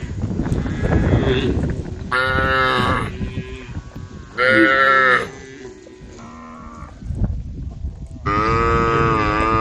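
Cows mooing: three or four drawn-out moos, one after another, the last one long. A low rumbling noise comes before the first moo.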